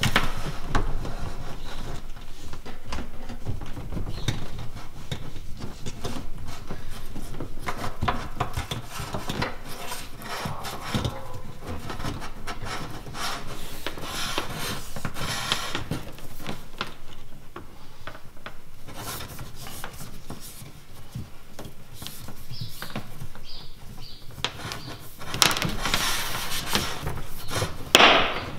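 Plastic hose being pulled and fed through a drilled hole in a fiberglass boat deck, rubbing and scraping against the edge of the hole, with small handling clicks and knocks. It gets a little louder near the end.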